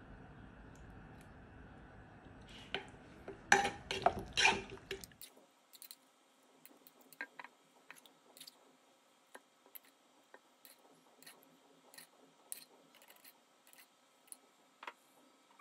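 Wet squelching and clicking of raw salmon pieces being tossed in a chili-garlic sauce in a bowl, loudest between about two and a half and five seconds in; after that only faint scattered ticks.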